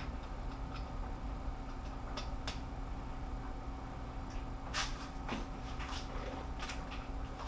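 Scattered metallic clicks and clinks of a long-handled socket wrench being seated on cylinder head bolts and turned as the torque-to-yield bolts are given their 90-degree turn. The clicks come more often and louder in the second half, over a steady low hum.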